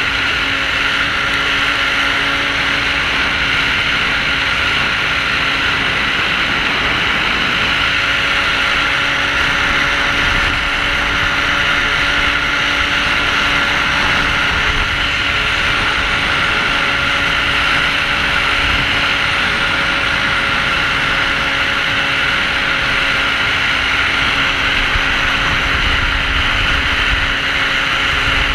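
Lynx Adventure LX 600 ACE snowmobile, with its four-stroke twin-cylinder Rotax engine, running at a steady cruising speed, its pitch holding level, under a steady hiss of track and wind noise.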